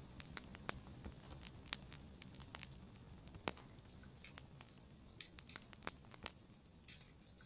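Wood fire of logs and pine cones crackling faintly in a fireplace: irregular sharp pops and snaps, several a second, a little sparser near the end.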